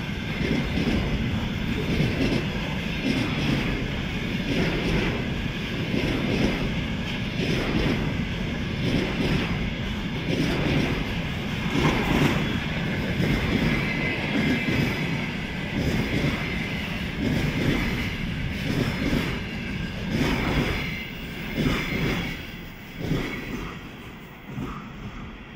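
Freight train of loaded container flatcars rolling past, the wheels clattering over the rail joints in a repeating rhythm. The sound fades over the last few seconds as the tail of the train goes by.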